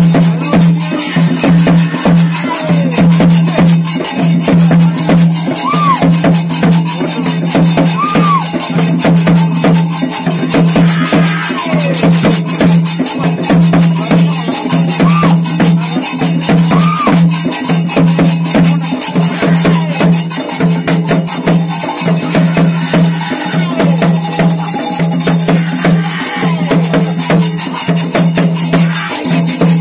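Theyyam ritual drumming: chenda drums and cymbals played fast and without a break, over a steady low droning tone that drops out briefly now and then.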